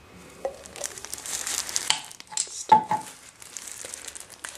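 Plastic crinkling and rustling as black plastic gloves and sheeting are handled, with a sharp knock about two and a half seconds in.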